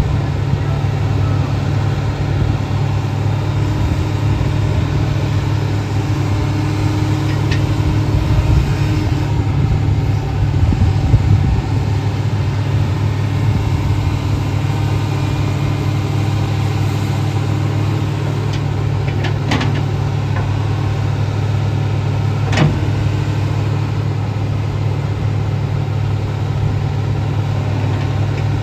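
A 2006 Komatsu PC300LC-7E0 hydraulic excavator's diesel engine idling steadily, with a few brief sharp clicks over the top.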